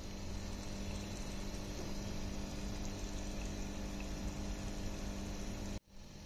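Masala gravy with kabab balls bubbling and simmering in a pan over a steady low hum, with a brief break in the sound near the end.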